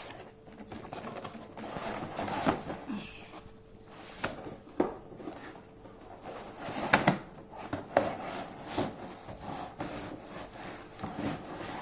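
Cardboard packaging being handled and opened by hand: scraping and rubbing with several sharp knocks, the loudest about two and a half, seven and eight seconds in.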